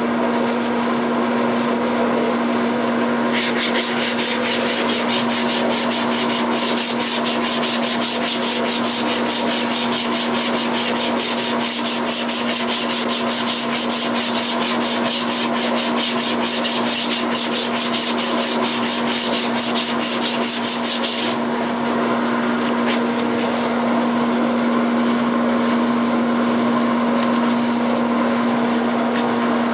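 Sandpaper held against a walnut handle spinning on a Record Power Herald wood lathe, giving a steady rasping hiss from about three seconds in until about two-thirds of the way through, when it stops. The lathe's motor runs with a steady hum throughout.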